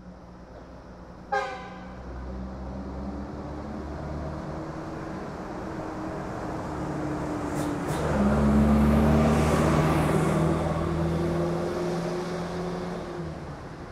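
Road traffic heard from a moving car: a steady low engine hum with a short, sharp horn toot about a second in, and the traffic noise swelling louder around the middle.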